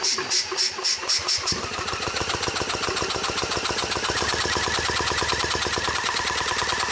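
Grail two-stroke prototype engine being spun over by a DeWalt drill without firing, chuffing air out through its partly opened exhaust valve. The pulses come about six or seven a second at first, then about a second and a half in the drill speeds up and they run together into a fast, steady pulsing.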